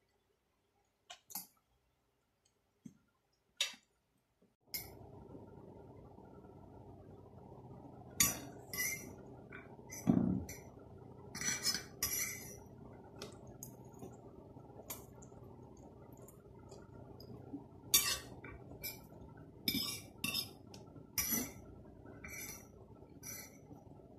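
Metal fork clinking and scraping against a ceramic plate while twirling spaghetti, in short, irregular clinks.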